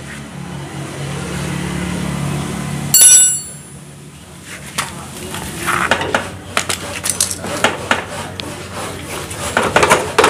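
A steady low hum for about three seconds, then a sharp metallic clink that rings briefly. After that come scattered metal clinks and rattles of a hand wrench and the steel exhaust pipe as the wrench is fitted to the exhaust flange nuts of a Honda Astrea Grand engine.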